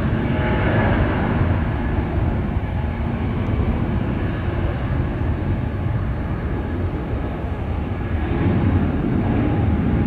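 Boeing 777-200's twin jet engines at takeoff thrust during the takeoff roll: a steady, loud rumble that swells again near the end.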